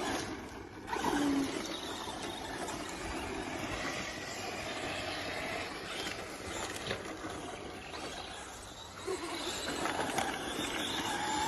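Radio-controlled race car running, a steady rushing noise with no clear pitch.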